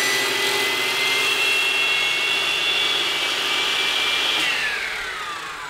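Sliding-table masonry saw running and cutting a manufactured-stone siding piece, with a steady high whine. About four and a half seconds in, the blade is released and the motor winds down, its whine falling in pitch.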